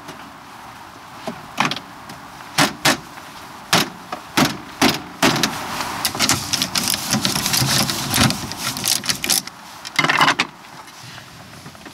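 Plastic door trim of a van being refitted by hand, with a screwdriver working at the inner door handle: scattered sharp clicks and knocks, and a denser stretch of scraping and clattering in the middle.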